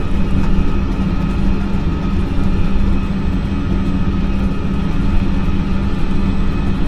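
Simulated jet cabin noise in a flight simulator: a steady, loud low drone of engine and airflow rumble with a constant low hum.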